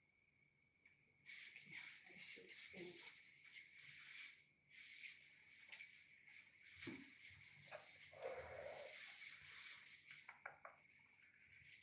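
Grooming scissors snipping and rustling through a toy poodle's fur, faintly. A quick run of sharp snips comes near the end. A faint steady high tone sits underneath.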